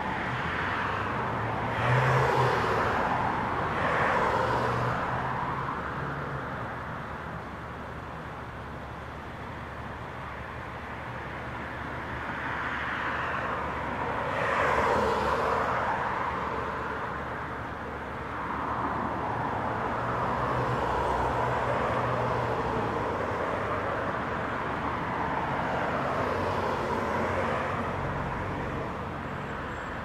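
Road traffic: several cars pass one after another, each a swell of tyre and engine noise that rises and fades.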